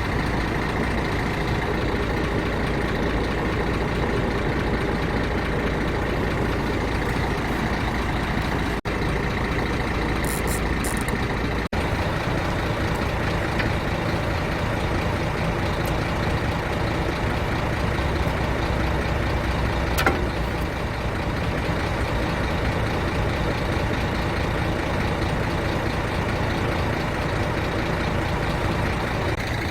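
Scania dump truck's diesel engine running steadily, with a single sharp click about two-thirds of the way through.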